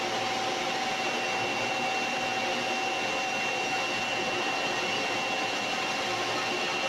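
Steady machine noise from submerged arc welding equipment running continuously: an even hiss with a constant high whine and a lower hum, unchanging throughout.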